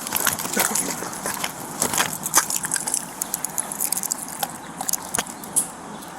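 Clothing and gear rubbing and knocking against a body-worn camera's microphone: a run of irregular short clicks, scrapes and rustles over a steady hiss.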